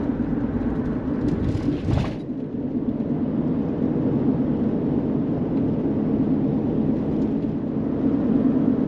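Steady road and engine drone of a diesel vehicle cruising at highway speed, heard from inside the cab. A brief louder rush comes about two seconds in.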